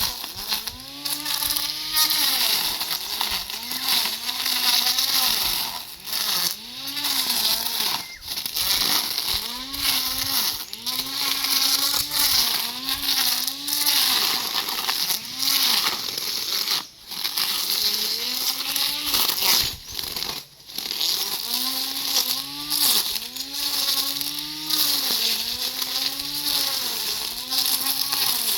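Lawn mower's motor running hard, its pitch dipping and recovering over and over as it cuts through grass.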